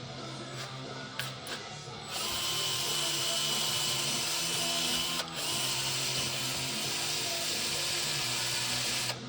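Handheld high-speed rotary tool running and grinding: a steady high whine over a hiss that starts about two seconds in, drops out briefly about halfway, and cuts off near the end.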